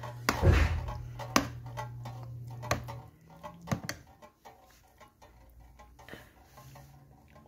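Metal spoon stirring vermicelli in an aluminium pot, clinking and scraping against the pot in a run of quick taps, louder over the first few seconds and fainter after. A thud about half a second in, and a steady low hum that stops about three seconds in.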